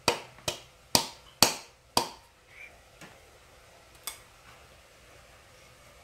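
Sharp knocks on a small bowl, tapped upside down to shake lemon zest out of it: five loud knocks in the first two seconds, about two a second, then a few fainter ones.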